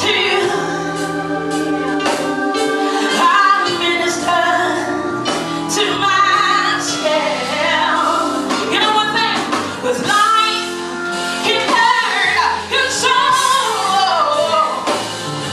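Live gospel music: singing over instrumental backing, with percussion hits throughout.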